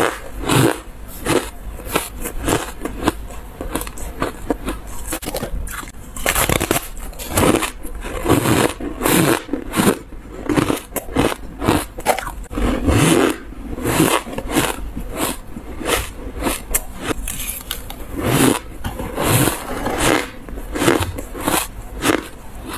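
Dry, crumbly "buckwheat" ice being bitten and chewed: a dense, irregular run of brittle crunches.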